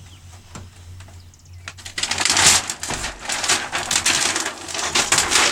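Thin plastic film sheets from an LED TV's backlight being pulled out by hand, with a few light clicks and then loud crinkling and rustling from about two seconds in.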